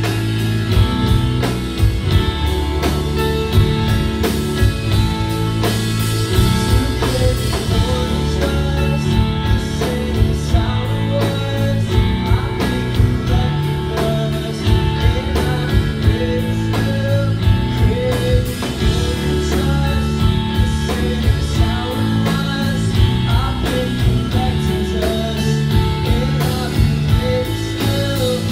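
Indie rock band playing live: two electric guitars, electric bass and drum kit, with a man singing over them.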